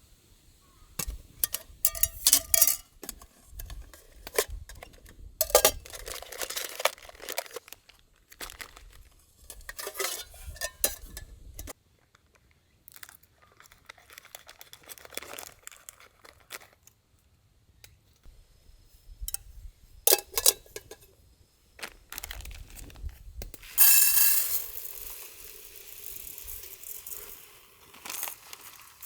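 Camp gear being handled: packaging rustling and crinkling, with irregular clinks of cookware and utensils. About 24 seconds in, a sudden loud hissing rush starts and fades away over a few seconds.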